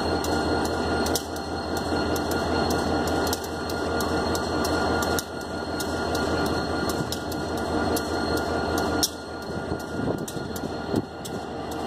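Diesel locomotive running on a turning railway turntable: a steady low engine drone under mechanical rumble, with many small clicks and knocks from the turntable and rails.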